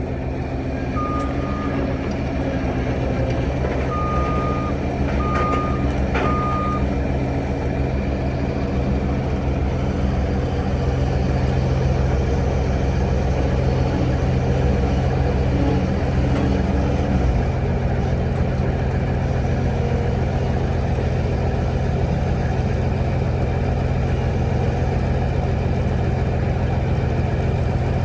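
Heavy diesel engine idling steadily, with a backup alarm beeping four times in the first seven seconds as a machine reverses.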